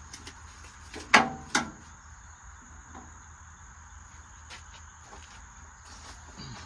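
Two ringing metal clangs about half a second apart, a little over a second in, from the welder being set onto the steel welding cart. Crickets chirr steadily in the background.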